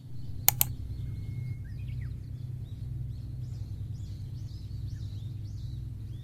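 Small birds chirping over a steady low rumble, with two sharp clicks close together about half a second in.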